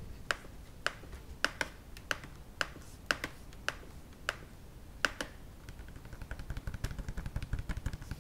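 Fingernails tapping on the plastic body of an Acer Aspire 3 laptop, about a dozen sharp taps at roughly two a second. After about five and a half seconds they change to quick scratching and rubbing over the plastic.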